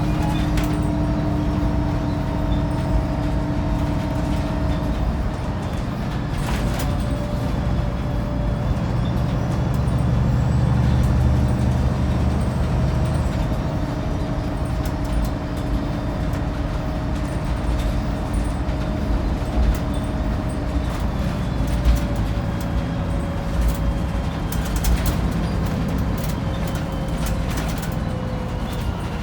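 Wright Pulsar 2 single-deck bus's diesel engine running steadily under way, heard from inside the saloon, with a steady whine from the driveline. A few short knocks and rattles sound now and then.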